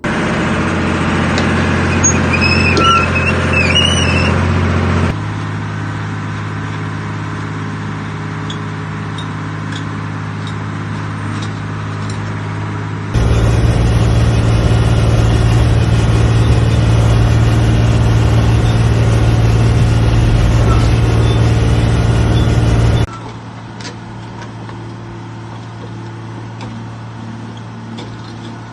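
Excavator's diesel engine running steadily at idle, in several clips cut together: the sound changes abruptly about five seconds in, gets much louder about thirteen seconds in, and drops back about twenty-three seconds in.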